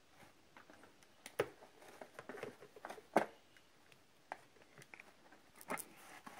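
Scattered light clicks and taps of plastic chess figures being handled and set down on a folding chessboard, the loudest tap about three seconds in.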